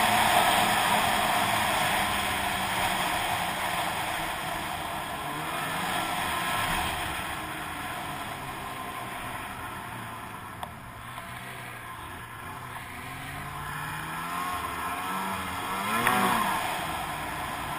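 Snowmobile engine running under way, its pitch rising and falling with the throttle over a steady rush of noise that is loudest at first and eases off mid-way. A short rev swells about sixteen seconds in.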